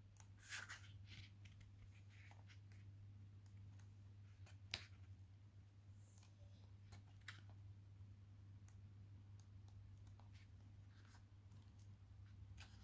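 Faint rustles and flicks of thick paper pages being turned in a perfect-bound art book, with one sharper snap of a page about five seconds in, over a low steady hum.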